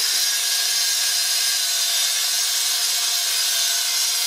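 Angle grinder cutting into a cast-iron boiler: a steady, high grinding noise with a constant whine from the motor.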